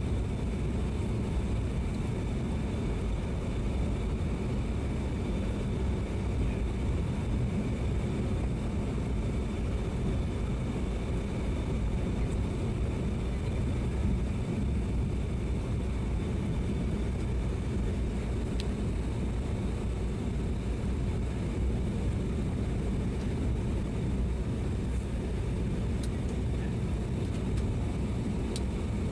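Steady cabin noise of a Boeing 737-800 descending on final approach with flaps extended: a low, even rush of airflow and engine noise with faint steady high-pitched tones above it.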